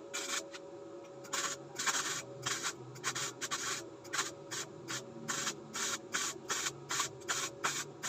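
Daiden 135XL MIG welder's arc crackling and hissing in short bursts, a few a second with brief gaps, as the trigger is pulsed, over the machine's faint steady hum.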